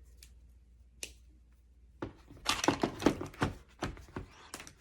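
Hand tools and their plastic packaging being handled in a plastic tool case: a couple of single clicks, then from about two seconds in a couple of seconds of quick clattering and rustling.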